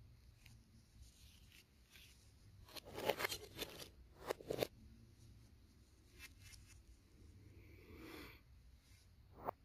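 Crinkly handling noises of a metal acrylic paint tube: two short bursts of rustling about three and four and a half seconds in, a soft swish near eight seconds, and a sharp click near the end.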